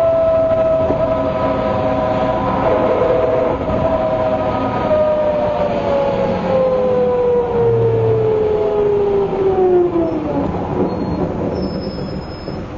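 MCW Metrobus's differentials whining while the bus is under way, over its Gardner diesel engine and road rumble. The whine holds a steady pitch, falls in pitch from about four seconds in as the bus slows, and dies away about ten seconds in.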